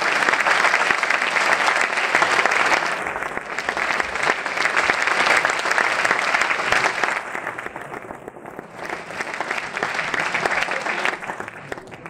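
Audience applauding, a dense patter of clapping that eases off past the middle, picks up again, then thins near the end.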